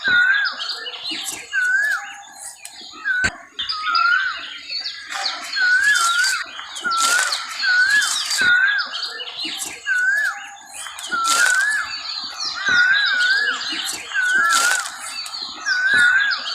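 Dense chorus of songbirds: a short whistled note that rises and dips, repeated over and over about once or twice a second, over a busy layer of higher chirps and twitters, with a few sharp clicks.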